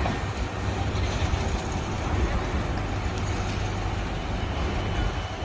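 Heavy diesel mining machinery running steadily with a deep, even rumble, during overburden loading by a shovel.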